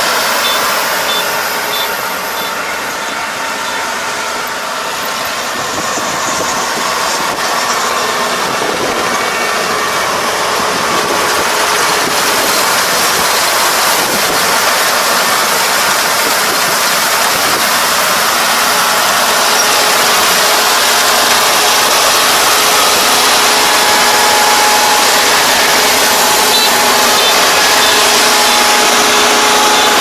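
Rice combine harvester running while it cuts standing rice: a steady drone of engine and threshing machinery with a faint hum of several tones. It grows gradually louder as the machine comes closer.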